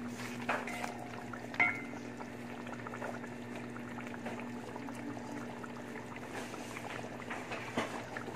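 Thick chicken masala simmering and bubbling in a metal pot, with a wooden spatula knocking against the pot a couple of times in the first two seconds.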